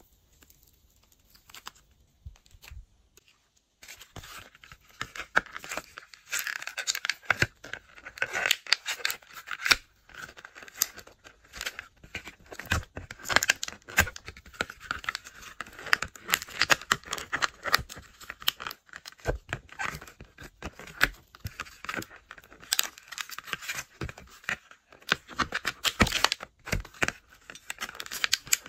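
Glossy slime being squished and stretched by hand: a dense, irregular run of sticky pops and crackles that starts about four seconds in, after a few quieter seconds.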